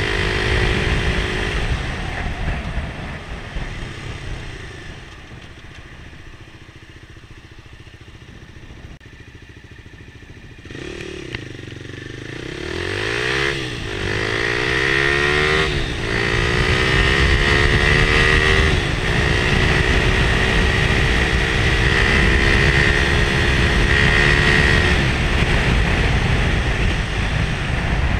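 Motorcycle engine heard from the rider's seat: it runs along, then eases off to a quieter low note for several seconds. About eleven seconds in it accelerates, rising in pitch and dropping back three times as it shifts up through the gears, then settles into a steady loud cruise.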